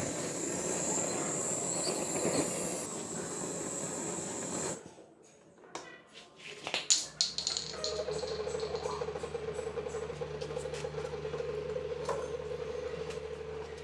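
Handheld butane torch on a gas canister hissing as its flame is played on charcoal, then cutting off abruptly about five seconds in. A few sharp clicks and knocks follow, then a steady hum sets in and holds.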